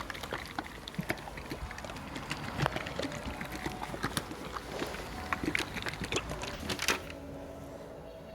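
Two-pack bed liner being poured and mixed in a container: a liquid sound with many irregular clicks and knocks, which die away about seven seconds in.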